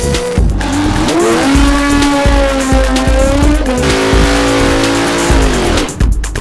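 Drag-racing burnout: a high-revving engine and screeching tyres. The pitch climbs about a second in, holds with a slight waver, and falls away near the end. Background music with a steady beat plays underneath.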